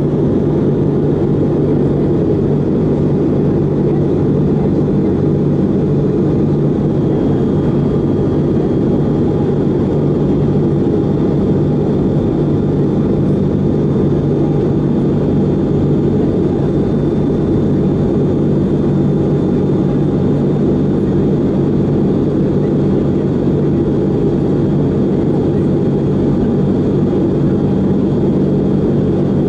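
Boeing 717's rear-mounted Rolls-Royce BR715 turbofan heard inside the cabin from a seat right beside the engine: a steady, loud jet noise with a low hum and a faint whine held on top. The plane is on its descent to land.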